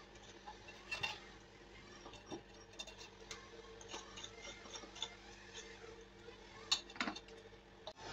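Light, irregular clicks and taps of cookies and fingers against a ceramic bowl and plate while the cookies are dipped in melted chocolate and set down, a few sharper taps about a second in and near the end, over a faint steady hum.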